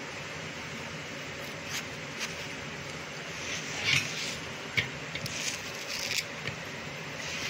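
A knife cutting through a peeled ripe mango: a few short, soft scrapes and squishes, strongest about four to five seconds in, over a steady background hiss.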